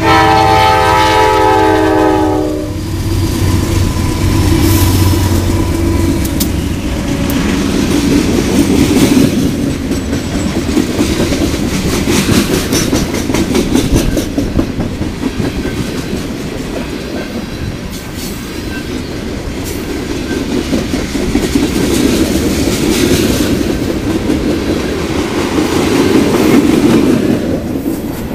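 Freight train passing close by: the horn of the lead Norfolk Southern diesel locomotives sounds for the first two and a half seconds and cuts off, over the rumble of the engines. Then the boxcars and covered hoppers roll past with a steady rumble and the clickety-clack of wheels over rail joints.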